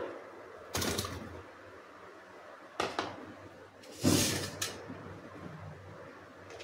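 Soya chunks tipped from a plate into a stainless steel bowl: three short knocking clatters, about a second in, near three seconds in, and a longer, loudest one about four seconds in.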